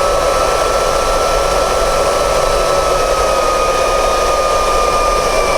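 Refurbished electric blower fan from a Mercedes W109's heater and air-conditioning system running at full speed on the bench: a steady motor whine over a rush of moving air, the pitch sagging slightly in the second half.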